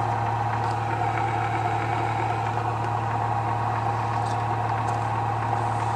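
Bedini SSG pulse motor running at a steady speed, a constant hum.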